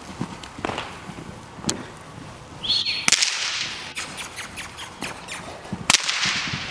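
Hoofbeats of a Gypsy Vanner horse cantering loose on soft arena footing, with two loud, sharp cracks about three seconds apart, each trailing off over about a second.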